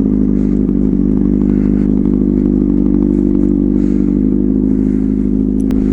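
Sport motorcycle engine running at steady revs while cruising, its pitch holding nearly constant, over a steady low rumble of wind on the helmet microphone.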